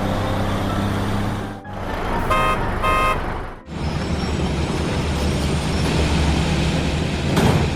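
Heavy construction-vehicle engine sound running steadily, briefly cut off twice, with two short horn beeps about two and three seconds in.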